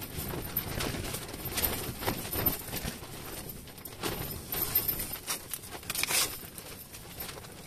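Irregular light knocks, clicks and rustling over a low rumble: an angler moving about and handling gear at an ice hole inside an ice-fishing tent.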